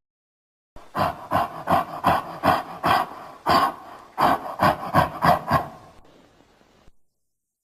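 Cartoon sound effect of rhythmic rasping strokes, like sawing, about three a second, stopping abruptly near the end.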